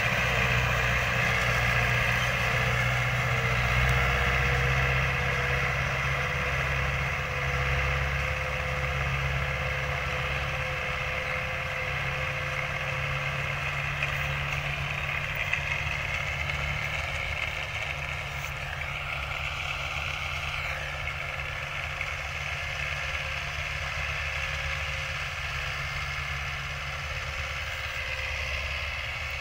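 Farm tractor's diesel engine running steadily under load as it pulls a disc harrow, a continuous hum that gradually grows fainter.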